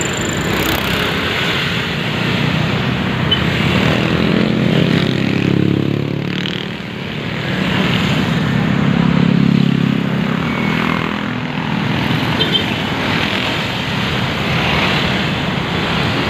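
Engine of the vehicle being ridden, running through city traffic and picking up speed twice, about four and nine seconds in, over steady road and wind noise.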